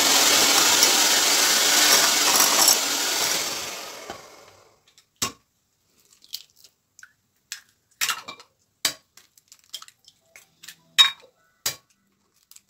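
Electric hand mixer beating butter, sugar and a fresh egg in a glass bowl, winding down and stopping about four seconds in. After that comes a scattered series of short, sharp taps and clicks as eggs are cracked against a bowl's rim.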